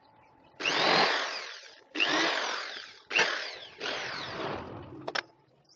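A power tool run in four short bursts, each starting abruptly and dying away within about a second with a falling whine. A short click follows near the end.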